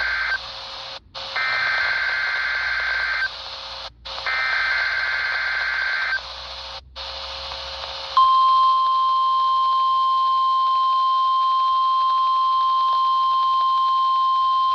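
NOAA Weather Radio broadcast over a weather-radio receiver's speaker with reception hiss: the end of one EAS/SAME digital header burst, then two more shrill warbling data bursts about two seconds long with a second's gap between them, followed about eight seconds in by the steady 1050 Hz weather radio warning alarm tone, sounding the required weekly test.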